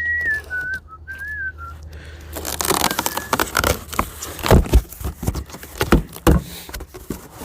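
A person whistles a short tune of gliding notes, which stops about a second and a half in. Then a cardboard box of steel targets is opened and handled, with dense rustling, crackling and several heavy knocks.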